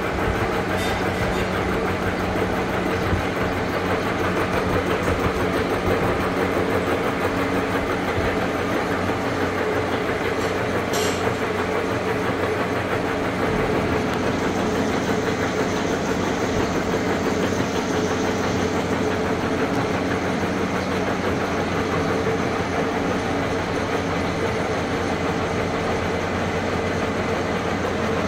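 Vertical knee-type milling machine face-milling a heavy metal part: the spindle and gear drive run with a steady hum over the noise of the face mill cutting the metal.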